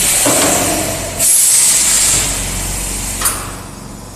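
Pneumatic press of a high-frequency welding and embossing cutting machine venting air: two loud hisses, the second starting about a second in, then a sharp click, over a steady electrical hum.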